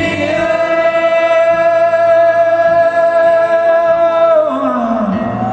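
Live acoustic rock song: a male lead voice holds one long sung note for about four seconds, then slides down near the end, over acoustic guitar accompaniment.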